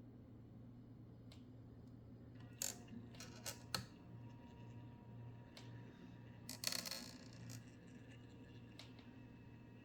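Reolink Altas PT Ultra security camera's pan-tilt mechanism giving two short bursts of clicking and grinding with a faint squeak, about three seconds in and again about seven seconds in, over a faint steady hum. The noise is the sign of a faulty pan-tilt drive, which the owner puts down to a possible motor malfunction or hardware failure.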